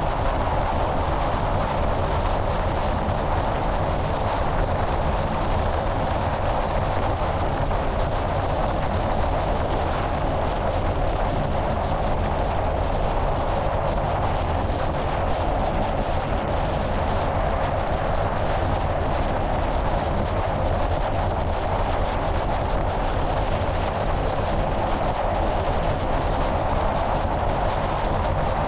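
Steady wind rush buffeting the microphone of a camera mounted outside on a car's hood at highway speed, over an even hum of road and tyre noise.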